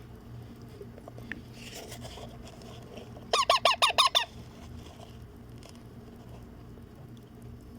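Baby Indian ring-necked parakeet chicks giving a quick run of about eight high squeaky begging calls in about a second, midway through, as they beg for food while being hand-fed.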